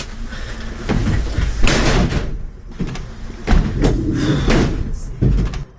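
Knocks and rattling of the doors and metal fittings in the rear cell of a police van, several sharp bangs a second or so apart.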